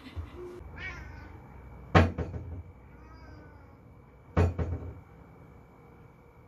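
Kitchen wall-cupboard door knocking against its frame as a Sphynx cat paws at it: a sharp knock about two seconds in and another a couple of seconds later, each followed by a few quicker rattles. A short meow comes about a second in.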